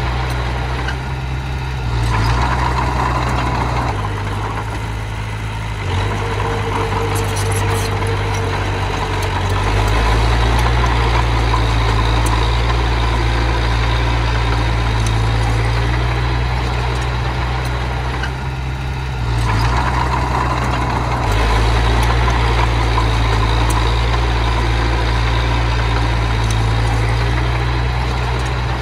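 Diesel engine of earthmoving machinery running steadily, its note and load shifting every few seconds as the machine works.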